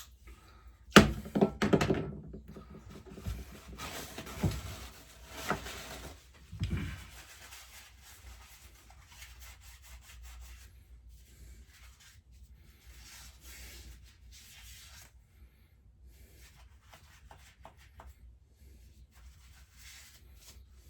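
Knocks and clunks of small metal carburettor parts and tools being handled on a workbench, with a sharp knock about a second in and a few more over the next six seconds, then faint rubbing and light clicks.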